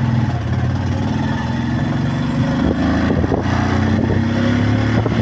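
Motorcycle engine running while riding at low speed, a steady note that rises slightly in pitch midway, with a few short rattles about three seconds in.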